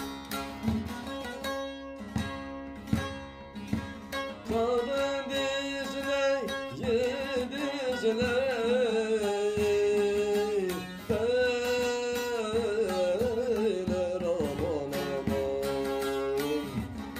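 Bağlama (long-necked Turkish saz) being plucked in a folk melody, with a singing voice coming in about four and a half seconds in and holding long, wavering notes.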